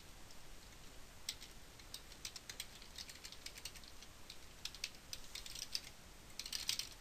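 Computer keyboard typing: irregular key clicks starting about a second in, quickening into a fast flurry near the end.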